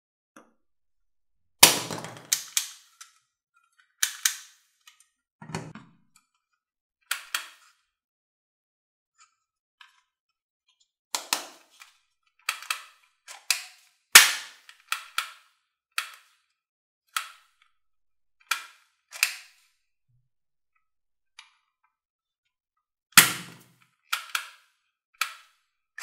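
Plastic toy guns being handled: an irregular string of sharp plastic clicks and clacks, a few of them heavier knocks.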